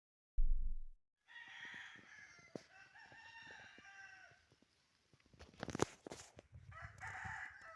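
A low thump, then a rooster crowing in one long call of about three seconds. After a short pause come a few sharp crackling bursts and the start of another crow near the end.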